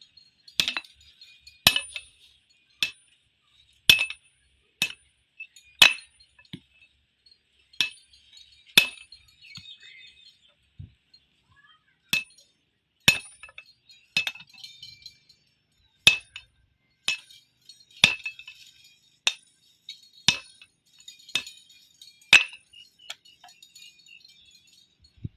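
Metal struck again and again with a hammer: about twenty sharp, ringing blows at uneven intervals, roughly one a second.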